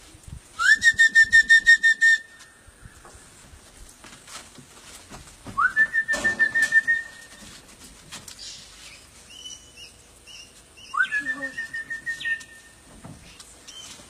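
A person whistling to call parrots: three long whistled calls about five seconds apart, each sliding up at the start, then held on one high note with a quick warble.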